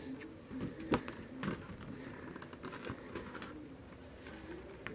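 Stiff photo-card pages of a desk calendar being handled and flipped: soft paper rustles and a few light taps, with a cluster of rustling about three seconds in.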